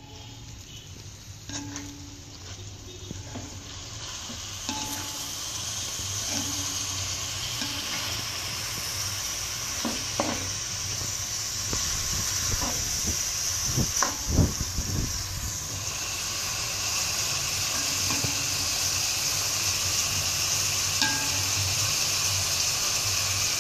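Chicken pieces and prawns sizzling in oil in a wok, the sizzle growing louder as the pan heats, while a spatula stirs them, with a few short knocks of the spatula against the pan near the middle.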